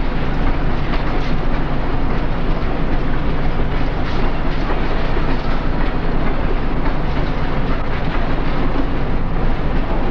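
Passenger train led by Illinois Central diesel locomotives passing at speed, a steady loud rumble of engines and wheels on the rails.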